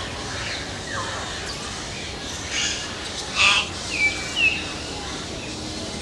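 Hill myna calling: short whistles that slide down in pitch, two louder harsh calls about halfway through, then two quick falling whistles close together.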